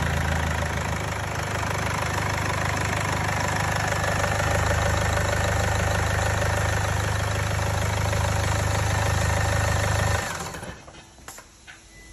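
Mercedes OM651 2.1-litre four-cylinder diesel idling steadily on its first run after a new inlet manifold is fitted. It is switched off about ten seconds in and runs down quickly.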